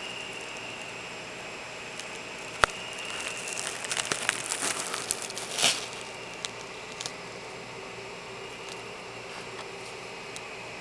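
Handling noise from the camera being moved about inside a cardboard maze. A sharp click comes first, then a few seconds of crinkling and crackling, all over a steady hiss.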